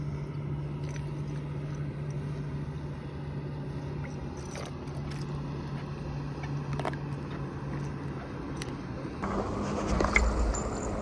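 A steady low engine hum with a few faint clicks. About nine seconds in, the hum gives way to a louder rushing noise.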